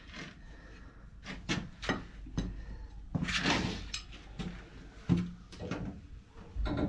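Scattered knocks and clunks, with some rustling, as a hand-bent water-heater anode rod is handled and worked into the top of the tank.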